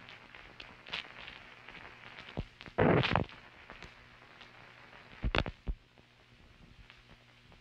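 Faint hiss and low hum of an old film soundtrack running on after the music, broken by scattered clicks and pops. The loudest are a short crackling burst about three seconds in and a couple of sharp pops a little after five seconds.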